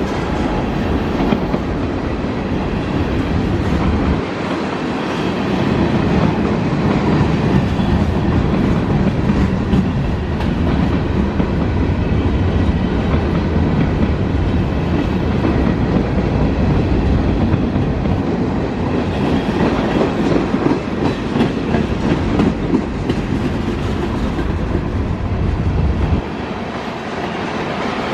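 Loaded freight train cars (tank cars, gondolas and covered hoppers) rolling past, with the steady noise of steel wheels on the rails. The deepest part of the sound drops off briefly about four seconds in and again near the end.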